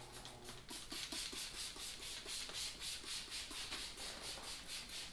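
Hand spray bottle pumped rapidly, about four hissing squirts a second, misting slip solution onto the car bonnet under the vinyl wrap so the vinyl won't stick down at first.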